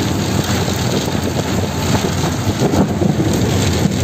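Steady low rumble of a car's engine and tyres heard from inside the cabin while driving, with wind noise over it.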